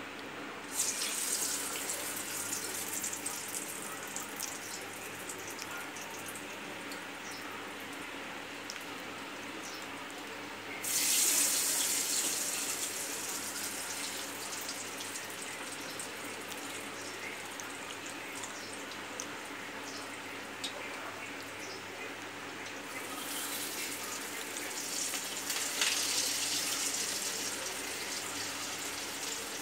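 Peanut masala vadai deep-frying in hot oil in a small pan, a steady sizzle that surges sharply about a second in, around eleven seconds in, and again from about twenty-three seconds, as freshly patted vadai go into the oil.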